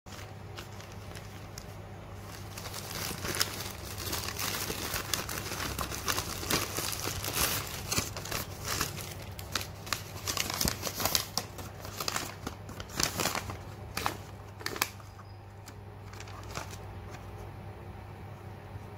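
A white plastic mailer bag being cut and torn open by hand, its plastic crinkling and crackling in a run of sharp rustles that die down about three-quarters of the way through, over a steady low hum.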